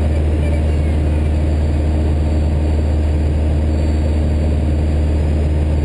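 Steady drone of a Socata TB-9 Tampico's four-cylinder Lycoming piston engine and propeller in cruise, heard from inside the cabin.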